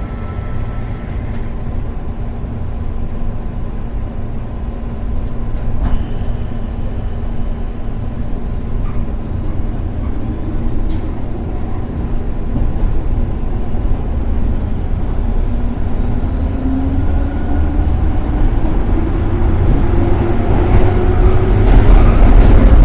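Metro train running with a steady low rumble and a few sharp clicks. In the second half a motor whine rises steadily in pitch and the sound grows louder as the train picks up speed.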